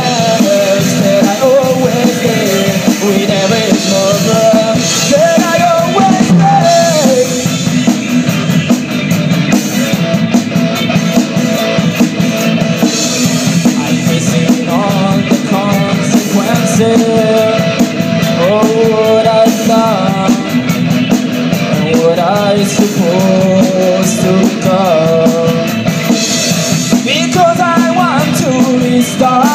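Live rock band playing loud: electric guitars and drum kit together, with melodic lines over a steady low end.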